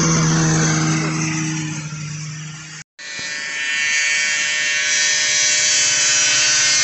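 Vintage two-stroke snowmobile engine at full throttle, its drone fading as the sled runs away down the drag strip. After an abrupt cut, a steady high-pitched buzz of snowmobile engines running flat out.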